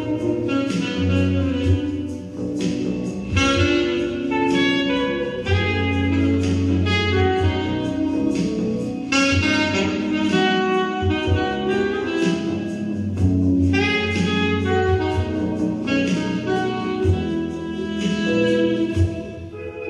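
An instrumental ensemble playing a melody in a jazz style, with a wind-instrument lead over long sustained bass notes.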